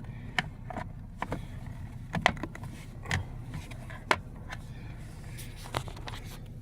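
Plastic steering column cover of a 2013 Dodge Grand Caravan being pressed and snapped back into place: a string of sharp clicks and knocks, over a steady low hum.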